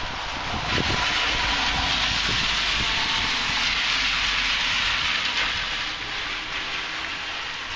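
Heavy rain, with a loud rushing surge that comes in suddenly about a second in, holds for about five seconds and eases near the end.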